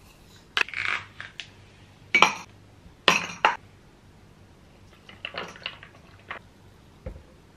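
Sharp clinks of a glass coffee jar and a metal spoon against a ceramic mug while instant coffee is made, four in the first few seconds. Then quieter clicks and handling of a soy milk carton as it is opened and poured, and a soft thud near the end.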